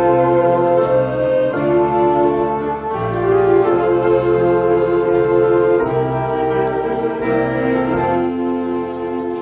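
Church orchestra of brass, strings and piano playing a slow hymn, the chords changing about every one to two seconds, with a few cymbal strokes.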